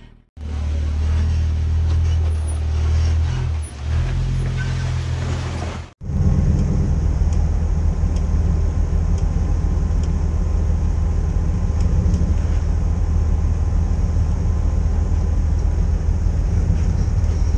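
Off-road 4x4 engine running at low revs, a deep steady drone. It breaks off sharply about six seconds in and picks up again, steadier.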